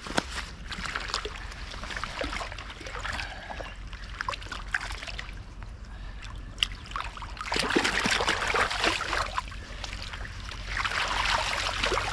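Shallow lake water sloshing and splashing at the bank, with scattered small knocks and clicks, as a carp is handled and slipped back into the water. The splashing grows louder about eight seconds in and again near the end.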